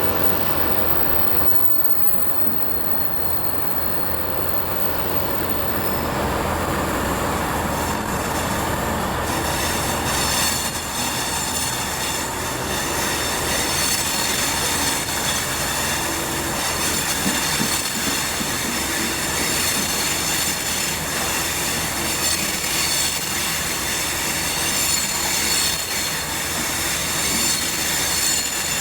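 Avanti West Coast electric train pulling away from the platform and gathering speed past the microphone, with a steady rail rumble. Its wheels squeal on the track, and a set of high steady whining tones sets in about ten seconds in and holds.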